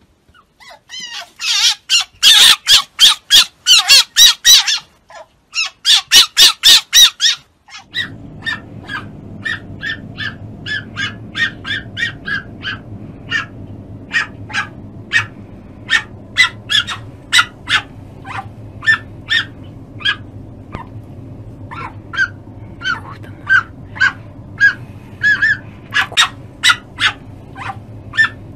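Fennec fox calls: two bouts of fast, loud, shrill chattering in the first seven seconds or so, then, over a steady low hum, a long run of short high yips, about two or three a second.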